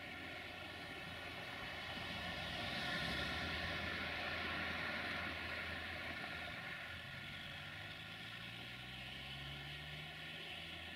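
Sulzer-engined 060-DA diesel-electric locomotive running, with a broad rushing rumble that swells around the middle and eases off. About two-thirds of the way through, the low engine note slowly climbs in pitch as the engine is throttled up.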